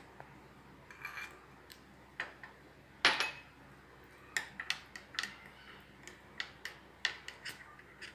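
A spoon clinking and scraping against a small bowl as spice powders are stirred with a little water into a masala paste. Scattered light taps, with a louder clink about three seconds in.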